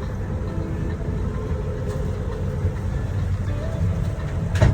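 Low, steady rumble of a boat's engine underway, with one sharp knock near the end.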